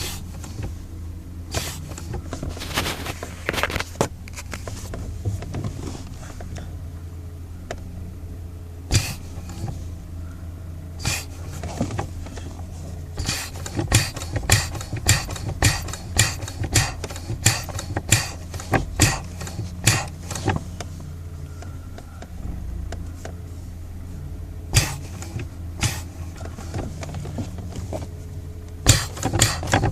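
Brakes making noise: a run of short, sharp clicking sounds over a steady low hum. They come a few at a time, then thick and fast, about two a second, for several seconds in the middle.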